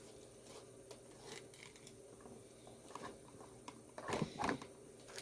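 Faint crinkling, rustling and small clicks of a little doll-accessory package being handled and opened, with a louder rustle about four seconds in.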